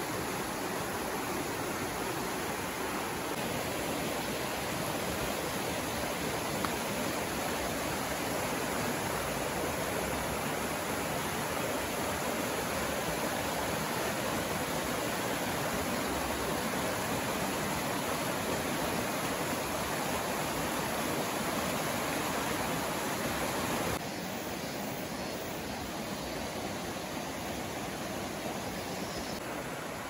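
Clear, shallow mountain stream rushing steadily over stones and small cascades. About 24 seconds in, the sound drops a little quieter.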